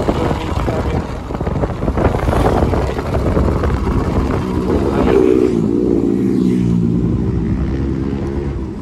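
Motorcycle riding on a road with wind rushing on the microphone. About five seconds in, the wind noise dies down and the engine's steady note comes through as the bike slows to pull in.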